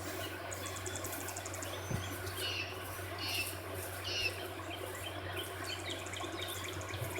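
Small birds chirping in short high calls, with a fast high trill about a second in, over a steady low hum.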